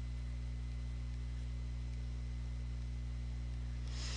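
Steady low electrical hum with a faint hiss, from the recording setup's mains hum. A soft rush of hiss comes up near the end.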